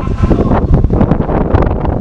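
Wind buffeting the microphone: a loud, uneven low rumble with crackles.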